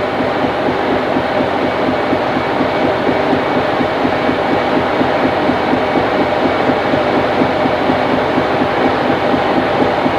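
A trawler's machinery running steadily on deck: a loud, constant mechanical noise with a fast, even pulse and several steady tones.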